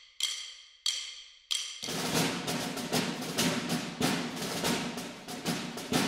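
Percussion music: four sharp struck notes that ring and die away, about two-thirds of a second apart, then fast steady drumming from about two seconds in.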